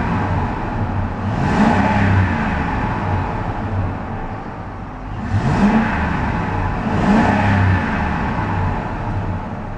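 Ford F-150's 5.4-litre Triton V8 free-revved twice, each time climbing to about 3,000 rpm, holding briefly and dropping back toward idle, heard from inside the cab. A nice muscular sound.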